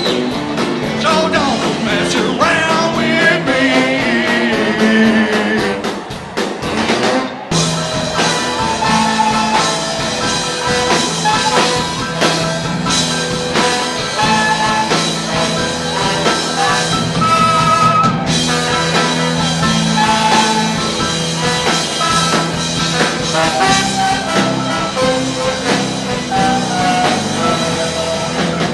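Live rock band playing on stage: electric guitar and drum kit, with a short break in the sound about seven seconds in.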